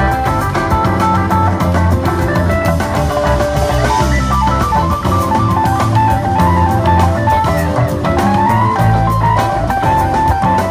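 Live rock band playing an instrumental passage: electric guitar and bass over a drum kit, with a lead melody of stepped notes and one upward slide about eight seconds in.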